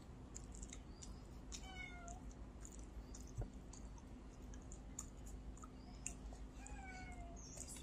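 A cat meowing twice, each meow short and falling slightly in pitch, about two seconds in and again near the end. Scattered small clicks run underneath, with one sharper knock about three and a half seconds in.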